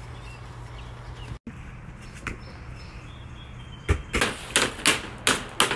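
Hockey stick striking a ball on an asphalt driveway: about six sharp cracks in quick succession, about three a second, starting about four seconds in. Before that, outdoor background with faint bird chirps.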